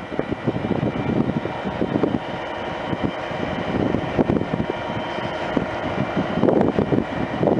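Siemens Class 350 Desiro electric multiple unit running as it pulls away from the platform, with wind buffeting the microphone.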